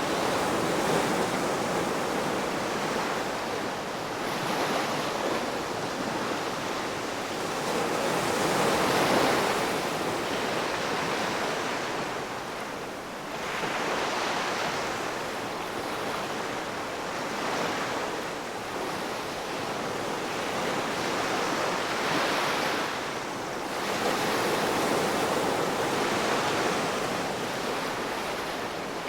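Ocean waves washing onto the shore, a steady surf hiss that swells and falls back every few seconds, with some wind.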